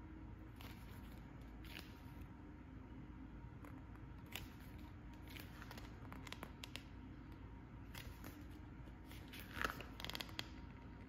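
Paper booklet pages being handled and turned: faint scattered rustles, with a louder crinkling page turn near the end, over a low steady hum.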